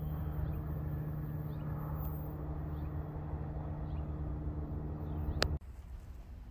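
Diesel freight locomotive engine running with a steady low hum, with a few faint bird chirps above it. The hum cuts off suddenly with a sharp click near the end.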